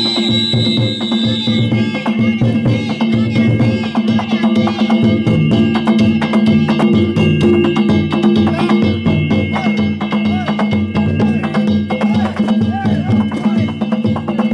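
Danjiri festival music: drums and small hand gongs beaten in a fast, steady rhythm. A high steady tone sounds over it and stops about two seconds in.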